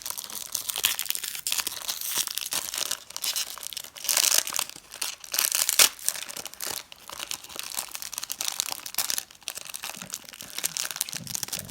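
Crinkling and tearing of a Pokémon booster pack's wrapper being opened and handled, with louder crackles about four to six seconds in.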